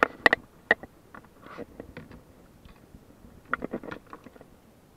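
Sharp knocks and clicks of gear being handled on a fishing kayak: a quick cluster right at the start and another about three and a half seconds in.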